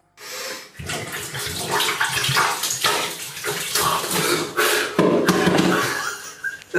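Water splashing and sloshing in a filled bathtub as a person shifts in it and pours liquid from a shaker bottle over himself, in irregular surges.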